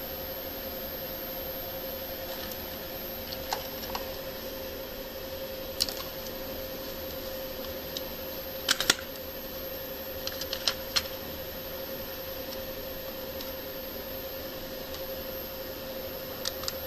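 Scattered light clicks and taps, some in quick pairs and the loudest pair about halfway through, over a steady hum and a faint high whine.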